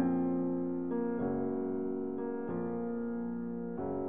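Background piano music: slow, held chords that change every second or so.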